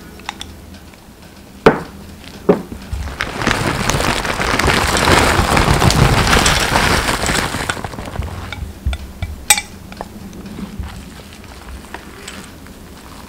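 Shredded cheese scattered over grated potato strips in a pan: a soft rustling hiss for several seconds in the middle, with a few sharp clicks against the pan before and after.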